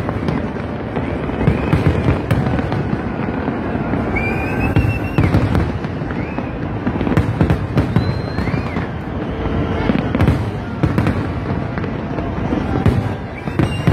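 Large aerial fireworks display: many shells bursting in quick succession, a dense run of sharp bangs and crackles over a continuous low rumble, with a few brief rising-and-falling whistles.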